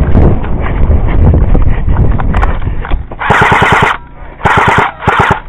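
Loud thudding and rustling of a player on the move, then an airsoft electric gun firing three short full-auto bursts, each a rapid string of about fifteen clicks a second.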